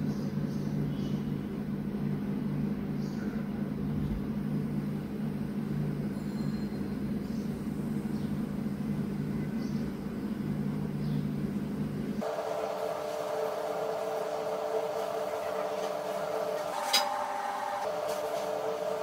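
Steady low mechanical hum. About twelve seconds in it switches abruptly to a different, higher-pitched steady hum, and a single sharp click sounds about seventeen seconds in.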